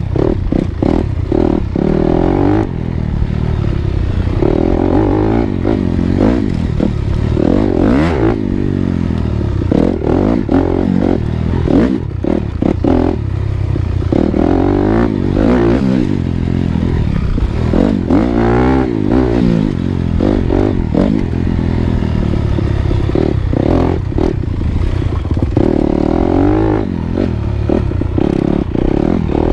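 Dirt bike engine revving up and down over and over as the bike is ridden, with a few sharp knocks, the clearest about eight and twelve seconds in.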